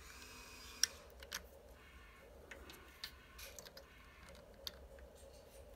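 Faint, scattered clicks of clear plastic 3D crystal puzzle pieces being handled and pressed together, the sharpest about a second in.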